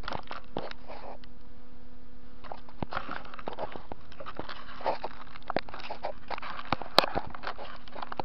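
Irregular metallic clicks, clinks and knocks of parts being handled and set at the three-jaw chuck of a TV-16 bench lathe, over a steady low hum. The sharpest knock comes about seven seconds in.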